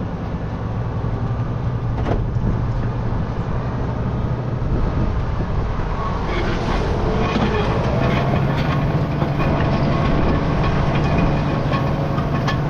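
Farm tractor engine running steadily under load. About six seconds in, a rattling metal clatter from the trailed implement joins it, and the engine note rises a little.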